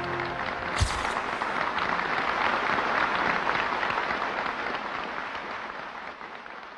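Audience applauding in a large hall, the clapping slowly dying away over the last couple of seconds, with a single sharp knock about a second in.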